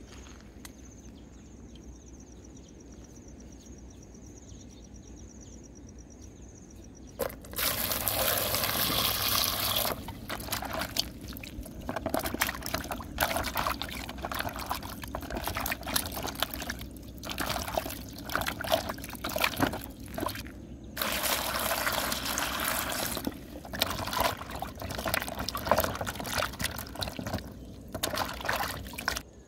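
Hands scrubbing peeled daikon radishes in a plastic basin of water: splashing and sloshing in bursts with short pauses, starting about seven seconds in. Before that, only a faint high insect trill is heard.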